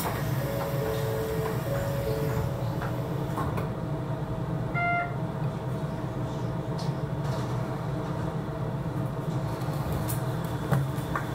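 Steady low hum of a Shonan Monorail 5000-series suspended monorail car, heard from inside the driver's cab, as the car departs the station. A short beep sounds about five seconds in.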